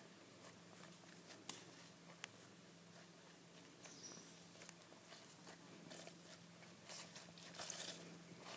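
Faint, scattered crunches and rustles of footsteps through long grass and weeds, a few louder near the end, over a low steady hum.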